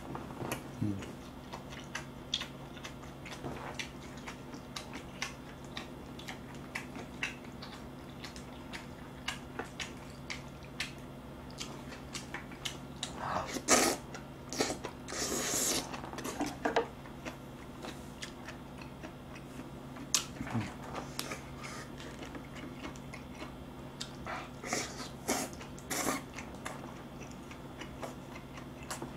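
Close-miked eating: chewing and scattered light clicks of chopsticks against dishes, with a longer, louder slurp of noodles from a bowl about fourteen seconds in.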